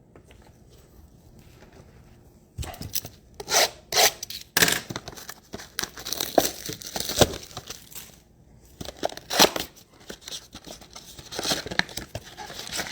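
Trading-card packaging being torn open and crinkled by hand, in a string of short tearing and crackling strokes. It is quiet for the first couple of seconds and pauses briefly about eight seconds in.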